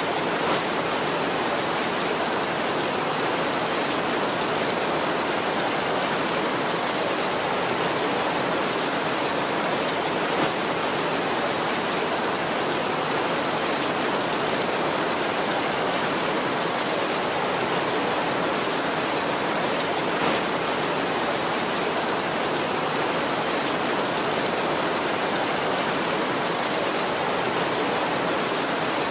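Steady heavy rain, an even hiss with no thunder.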